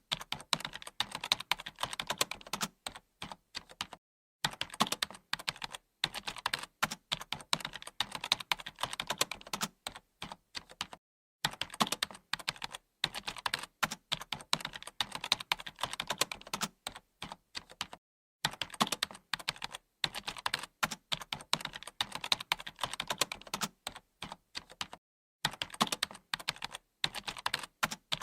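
Typing on a computer keyboard: fast, continuous key clicks in runs of several seconds, broken by brief pauses about every seven seconds.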